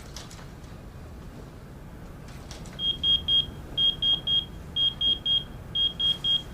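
Pager beeping: groups of three short high electronic beeps, one group about every second, starting about three seconds in.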